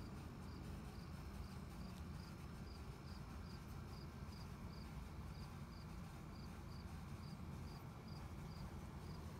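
An insect chirping steadily, about two short high chirps a second, faint over a low outdoor rumble.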